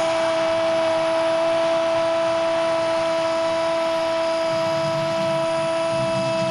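A Spanish-language football commentator's long drawn-out goal call, "gooool", a single shouted note held at one steady pitch, over the crowd's noise.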